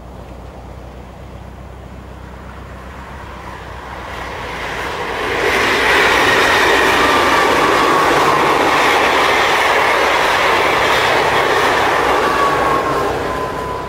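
Electric passenger train passing on the rails. It grows louder from about four seconds in, holds loud for several seconds with a high whine that slowly drops in pitch, then begins to fade near the end.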